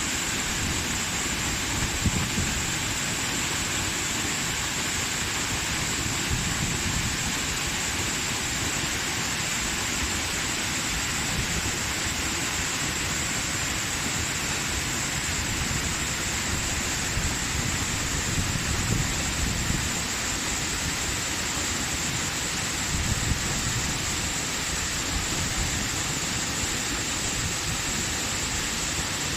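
Waterfall: a steady rush of falling water with a deep low rumble underneath.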